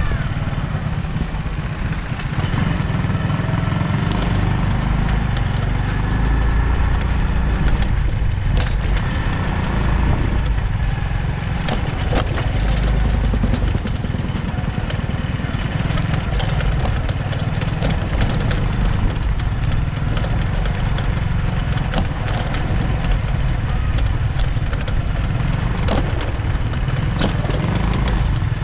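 Ride noise from a bike on a rough, unpaved dirt road: a steady low rumble with constant rattling clicks and crackles from the jolting over bumps.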